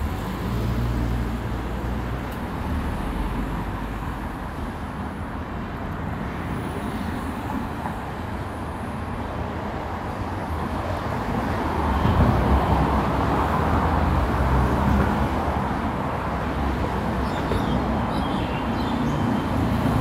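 Road traffic on a city street: a steady wash of engine and tyre noise with a low rumble, growing louder about twelve seconds in.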